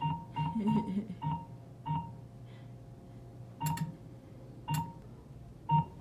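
Short electronic beeps from an interactive bug-catching game. A quick run of blips comes in the first two seconds, then a lull, then louder beeps about a second apart.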